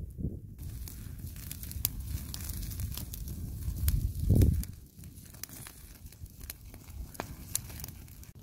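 Campfire crackling with scattered sharp pops as sausage and salo cook over it, over a low rumble, with a heavier low swell about four seconds in.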